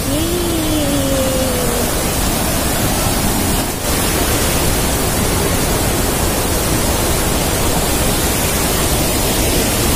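Steady rushing roar of a waterfall, an even wash of falling-water noise. A short falling vocal sound is heard in the first two seconds.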